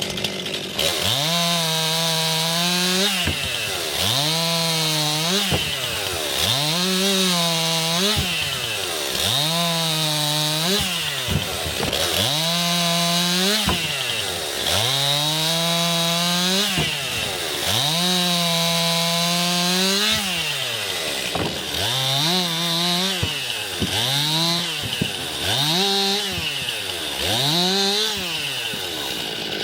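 Stihl MS 261 two-stroke chainsaw bucking logs: the engine revs up and holds high pitch through each cut, then drops back toward idle, over and over, about fourteen times. The cuts get shorter and quicker near the end.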